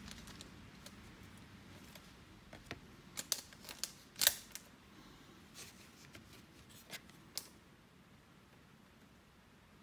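Scattered light clicks and snaps of baseball trading cards being handled and flipped through by hand, clustered about three to four seconds in, the sharpest about four seconds in.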